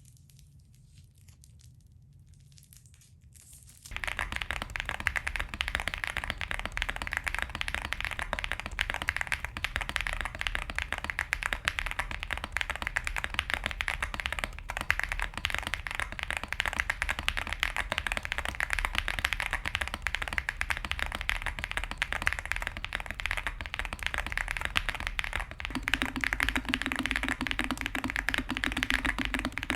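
Fast, continuous typing on a Pixel Space Capsule 65 custom mechanical keyboard with lubed Zaku II tactile switches, a polycarbonate plate and DMK Donut keycaps. After a near-quiet start, a dense stream of keystrokes begins about four seconds in. A low steady hum joins near the end.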